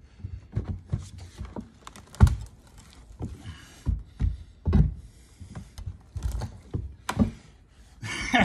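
Steel crowbar prying up an old wooden door sill: an irregular run of knocks, creaks and cracks of wood and metal, with harder thuds about two, five and seven seconds in.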